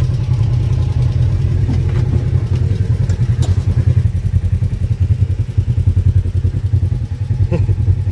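Polaris RZR XP 1000 side-by-side's engine idling steadily with a rapid, even low pulse, with a couple of faint clicks.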